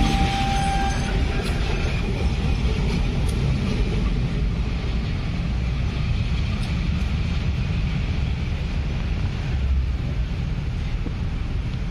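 A CC201 diesel-electric locomotive's engine runs as the locomotive pulls away and fades, with wind buffeting the microphone as a low rumble.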